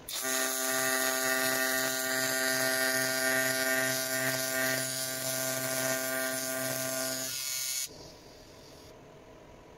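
TIG welding arc on an aluminium intercooler end tank: a steady AC buzz with a hiss over it. It starts at once and cuts off abruptly about three-quarters of the way through.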